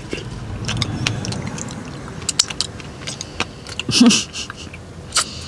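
Wet eating sounds of a person chewing and sucking raspberries and cream off his fingers: scattered lip smacks and mouth clicks, with a short hummed 'mm' about four seconds in.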